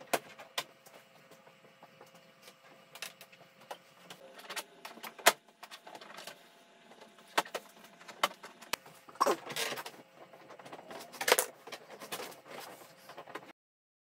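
Scattered sharp clicks, knocks and small rattles as a Subaru Legacy GT hood scoop is worked and pried by hand against the hood, with two longer scraping rustles a few seconds before the end. The sound stops abruptly just before the end.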